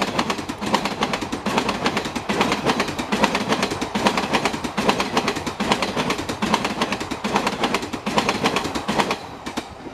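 Passenger train coaches rolling past, their steel wheels clattering rapidly over rail joints and points, with a steady rumble underneath. The clatter thins out and drops away near the end.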